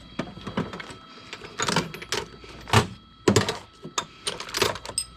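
Metal sockets and tools clinking and clattering in an irregular string of sharp knocks as a socket set is rummaged through.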